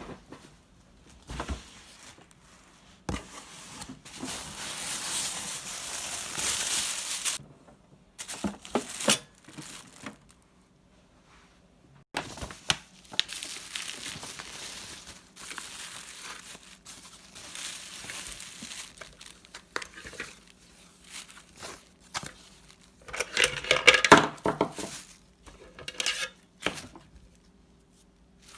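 Crinkling and tearing, with scattered knocks and light clinks: a long rustle about three seconds in and a louder burst of crinkling near the end.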